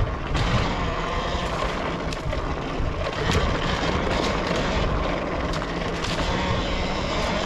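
Talaria Sting electric dirt bike riding along a wooded trail: a faint, steady electric motor whine over a loud rumble of tyres and drivetrain, with scattered sharp clicks and knocks.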